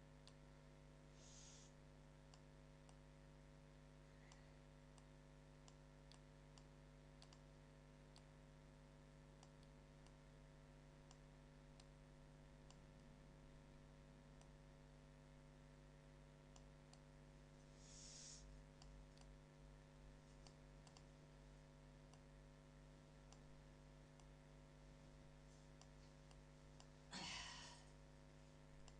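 Near silence: faint scattered computer-mouse clicks over a steady low electrical hum, with three brief soft hisses, the loudest near the end.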